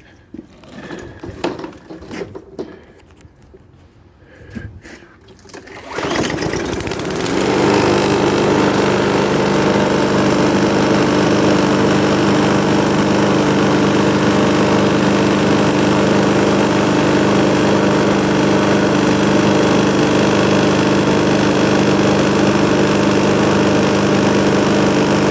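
Bolens 500E walk-behind lawn mower's 140cc Briggs & Stratton engine starting about six seconds in, after some handling clicks and knocks, then running steadily at an even speed. It starts and runs smoothly on a freshly cleaned carburetor.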